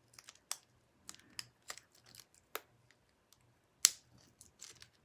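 Irregular small clicks and snaps of plastic packaging being worked at by hand to free a memory card, with one sharper snap just before four seconds in.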